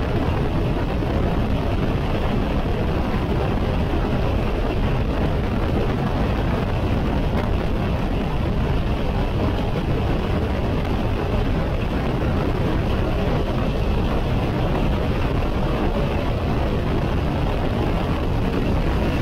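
Steady wind rush and road noise of a BMW K1600 GT motorcycle cruising at highway speed, with its inline six-cylinder engine running underneath, buffeting the action camera's microphone.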